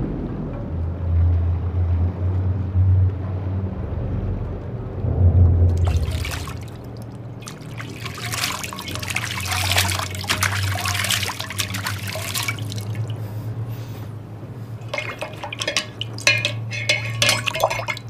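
A low steady hum, with liquid splashing and trickling over it in two spells: a longer one starting about six seconds in, and a shorter, choppier one near the end.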